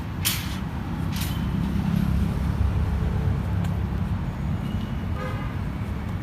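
Road traffic in a jam: heavy vehicle engines running low, with two short hisses in the first second and a half and a brief horn toot about five seconds in.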